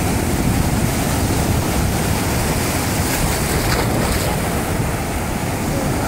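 Strong sea surf breaking and washing through shallow water in a steady rush, with wind buffeting the microphone.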